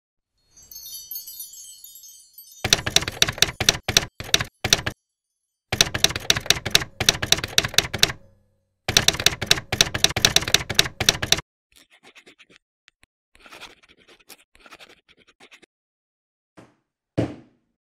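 Typewriter keys clacking in three rapid runs, then a fainter scratching like a pen writing, and two short thuds near the end.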